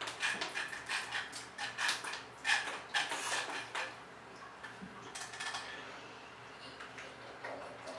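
Light plastic clicking and clattering from toy fishing rods and plastic toy fish being handled, a quick run of clicks in the first half that thins out after about four seconds.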